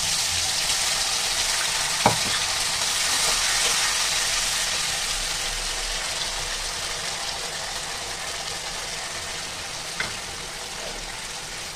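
Ground tomato gravy sizzling loudly as it hits hot mustard oil in a kadhai, the hiss slowly dying down as it is stirred. A sharp metal clink about two seconds in and another near the end.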